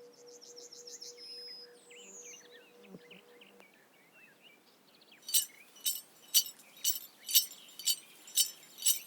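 Small birds chirping over a steady ringing tone that stops a little past three seconds in. Then, about five seconds in, a regular series of sharp clinks starts, about two a second, with a short ringing edge to each.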